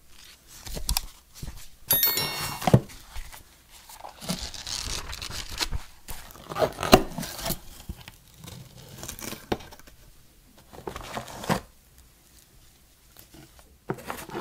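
Paper instruction leaflets rustling and cardboard packaging inserts scraping and knocking as a camera box is unpacked with cloth gloves. It comes in irregular bursts of crinkling, with a few sharper knocks around three and seven seconds in.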